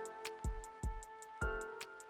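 Instrumental background music with a steady beat: low drum hits and quick regular hi-hat ticks under held chords.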